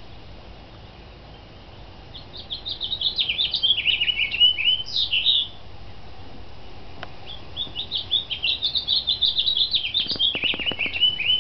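A songbird singing two long, fast, warbling phrases of varied notes, each about three seconds long, with a pause of about two seconds between them. A few faint clicks come near the end.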